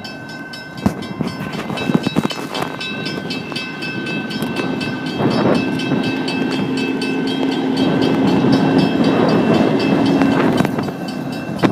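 Railroad grade-crossing bells ringing on and on with rapid, even strikes, while a hi-rail maintenance truck runs along the rails through the crossing, its rumble and hum growing louder past the middle and easing off near the end.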